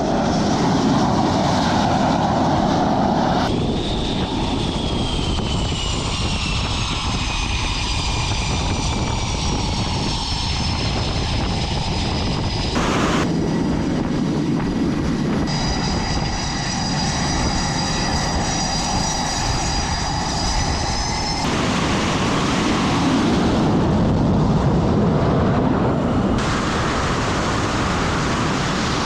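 Jet aircraft engines running with a steady rush and a high whine, in several clips cut together. A few seconds in, one whine slides down in pitch.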